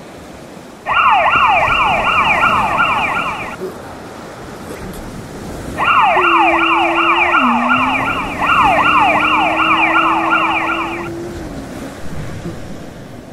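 Police siren sound effect in a fast yelp, each wail falling quickly in pitch and repeating about three times a second. It sounds in two stretches: from about a second in for nearly three seconds, then again from about six seconds for five seconds. Under the second stretch runs a lower steady tone that drops in pitch once.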